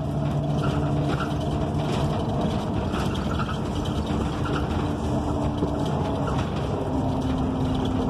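Interior sound of a NABI 45C-LFW transit bus under way: its Cummins Westport ISL G natural-gas engine and Allison B400R transmission running steadily under road noise, with no HVAC fans. The low engine hum changes pitch about two seconds in and again near the end.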